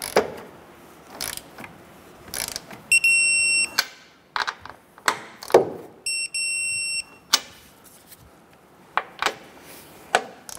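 Digital torque wrench beeping as each upper strut mount nut reaches the set 24 foot-pounds: two steady high beeps of about a second each, about three seconds apart. Sharp clicks and knocks of the wrench and socket on the nuts come between them.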